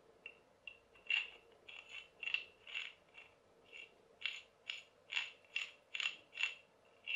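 Light metallic clicks, about two a second, each with the same short ringing note, as the armature of a dismantled hand blender motor is worked by hand inside its stator.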